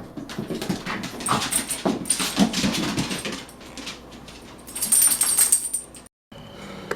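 A dog whimpering and whining in short, irregular cries over handling and rustling noise; the sound cuts out suddenly about six seconds in.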